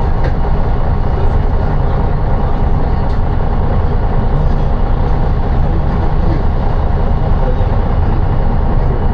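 City bus's engine and road rumble heard from inside the cabin, steady and even.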